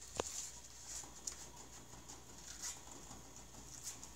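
Hamster gnawing on the steel wire bars of its cage: faint, irregular clicks and scrapes of teeth on metal, with one sharper click just after the start.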